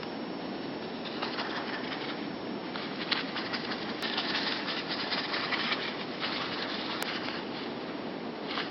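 Small birds' wings flapping in short flurries, over a steady background hiss.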